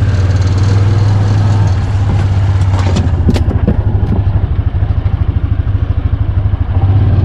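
A vehicle engine running at a low, steady speed, with a few clattering knocks about three seconds in.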